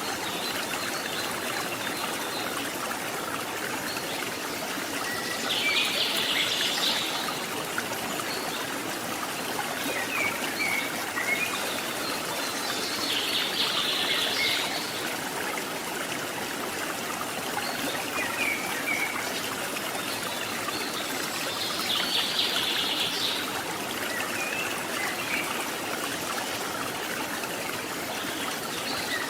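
Steady rush of flowing water from the waterfall and stream. Three times, about every eight seconds, a short high trill rises above it, and a few small bird chirps come in between.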